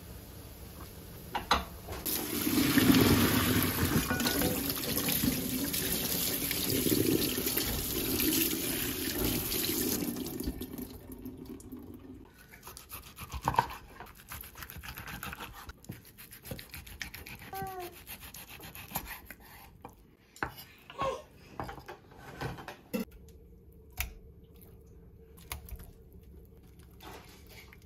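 A kitchen tap runs for about eight seconds and then stops. After it come scattered knocks and clicks from a knife cutting blanched beef shank on a wooden cutting board.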